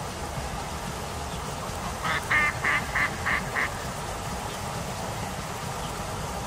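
A duck quacking: a quick run of about six quacks, roughly three a second, starting about two seconds in, the first one loudest.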